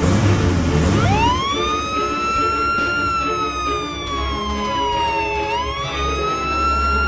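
A wailing siren over background music. It comes in about a second in and rises slowly, falls, then rises again near the end, one slow wail every few seconds.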